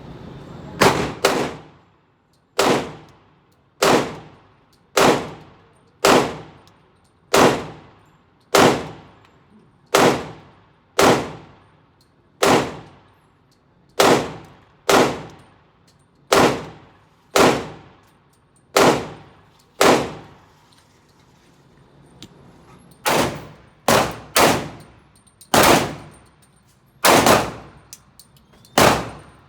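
Gunshots at a shooting range: about twenty single shots, roughly one a second, each with a short ringing tail. A pause of about three seconds comes about two-thirds of the way through, then the shots resume.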